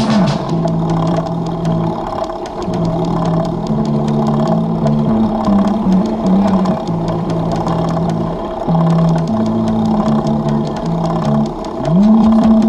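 Background music with a low bass line moving between held notes, and a note that slides up and back down near the end.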